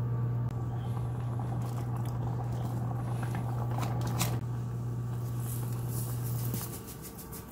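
A pot of soup boiling on an electric cooktop: steady bubbling and crackling over a constant low hum. A spoon clicks against the pot several times near the end as salt is added.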